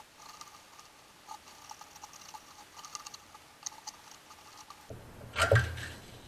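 Faint, irregular metallic clicks and taps of hand tools working on the engine's front pulleys and belt area. About five and a half seconds in comes a louder, short thud with a low rumble.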